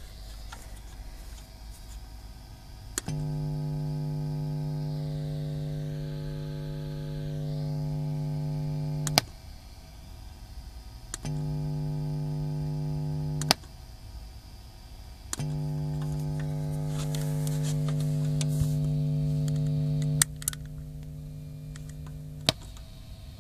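Bugera 6262 Infinium tube amp head giving off a loud buzzing hum with several overtones. The hum comes on and cuts out three times, each time with a sharp click, then carries on more quietly near the end. It is the noise fault in the amp's effects loop.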